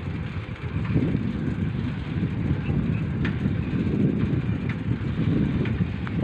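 Wind buffeting the microphone of a phone riding on a moving bicycle: a heavy, uneven rumble, with a few faint ticks around the middle.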